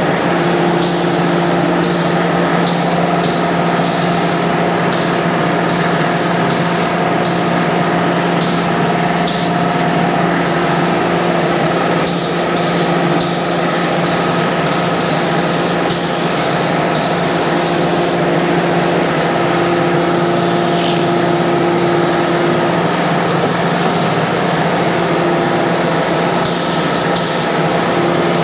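Gravity-feed paint spray gun hissing as it sprays, the hiss broken by brief gaps as the trigger is let off and pulled again, over a steady hum.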